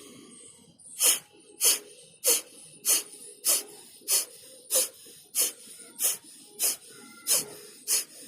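Kapalbhati pranayama: a person forcing short, sharp breaths out through the nose in a steady rhythm. There are about a dozen quick exhalations, a little under two a second, starting about a second in.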